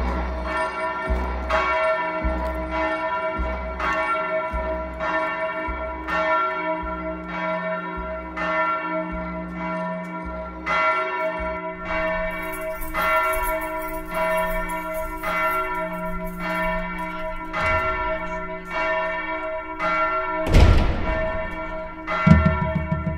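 Bells ringing, struck again and again, each stroke's tones ringing on over a low pulse about once a second that stops about halfway through. A loud hit comes a few seconds before the end, and then a quick drum beat starts.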